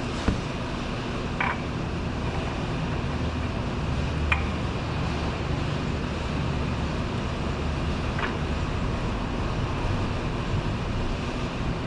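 Steady low rumbling background noise in a garage, with a few faint short clicks and scrapes as a new oil filter is spun on by hand.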